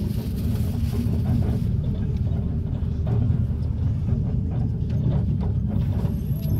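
Minibus engine and road noise heard from inside the cabin while driving: a steady low rumble.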